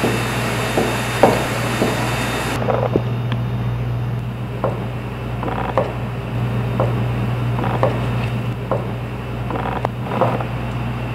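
Kitchen knife chopping through a block of tofu and knocking on a plastic cutting board, irregular soft knocks about once a second, over a steady low hum.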